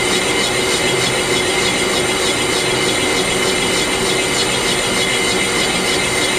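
Metal lathe running steadily while a boring bar takes a rough cut inside a 1941 Indian flathead motorcycle cylinder barrel, with a steady whine over the machine noise.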